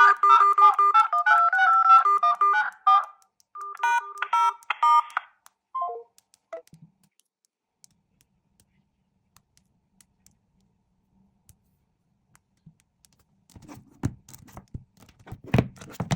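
A smartphone's electronic alert melody plays in short repeated phrases for about five seconds, then ends with a short falling run of notes. Near the end there is a run of soft clicks and knocks, with one louder knock.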